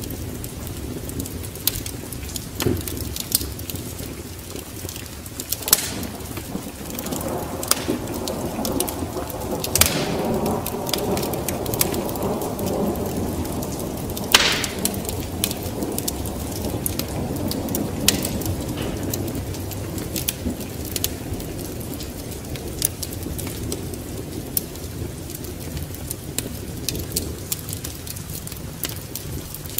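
Wood fire crackling with scattered sharp pops over steady rain. A long roll of thunder swells about a quarter of the way in and fades over the next dozen seconds.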